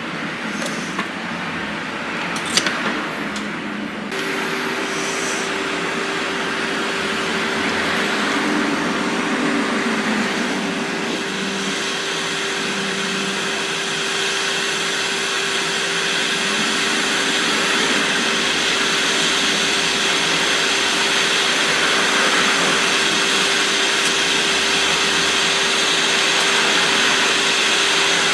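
Hot air rework station blowing steadily, a constant airflow hiss with a steady fan hum that switches on about four seconds in, while replacement capacitors are being reflowed onto a laptop logic board. A few light clicks come before it starts.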